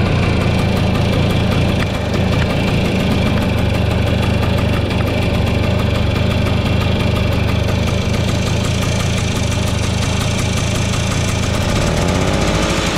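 Vespa P200E's single-cylinder two-stroke engine running steadily at idle, its note wavering slightly near the end. Its ignition is firing too close to top dead centre.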